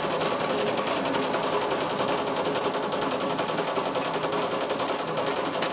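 Drill press running steadily with a fast, even pulse while drilling a hole through the flattened end of a small forged steel hook.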